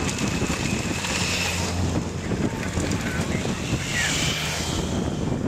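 Wind buffeting the microphone over a steady low rumble, with a few faint high-pitched calls or whistles now and then.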